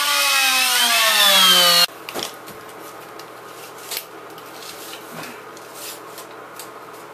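Corded electric drill running with its bit in a pine 2x4, the motor whine rising in pitch, then cut off abruptly about two seconds in. Afterward, faint knocks and clicks of lumber being handled.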